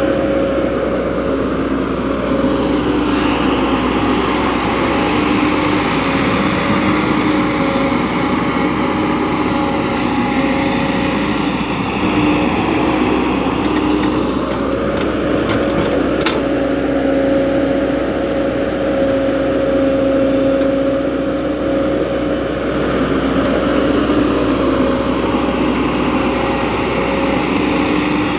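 Diesel engine of a JCB tracked excavator running steadily under working load while it digs and swings. The engine note swells and eases a few times as the boom and bucket are worked. A few brief sharp clicks come about halfway through.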